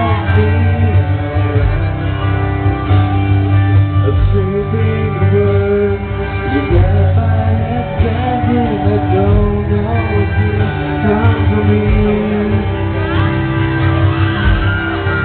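Male singer performing a pop love song live over loud amplified backing music with guitar, heard through the stage sound system.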